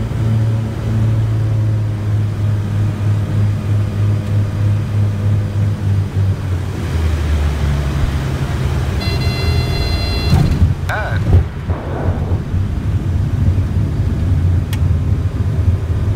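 Twin piston engines of a Cessna 414 droning inside the cabin on the landing approach. The pitch drops about seven seconds in as power comes back. A brief high tone sounds about nine seconds in.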